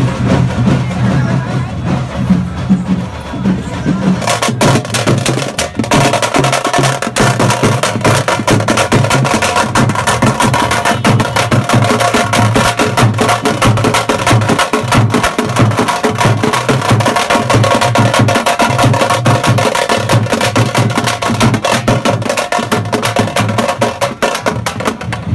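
Teenmaar drumming from a chatal band: fast, dense drum strokes in a steady driving rhythm, growing fuller and louder about four seconds in.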